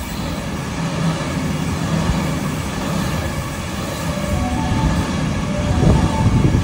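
Sydney Trains Waratah double-deck electric train running along the platform: a steady rumble of wheels and motors that grows louder as the carriages go by, with a faint whine coming in about four seconds in.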